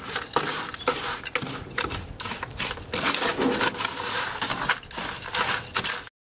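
Irregular crackling and rustling noise full of sharp clicks, which cuts off abruptly near the end.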